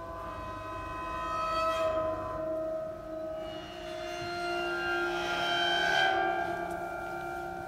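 Experimental ensemble music from synthesizer and vibraphone: overlapping sustained drone tones at several pitches that shift slowly. The sound swells to its loudest about six seconds in.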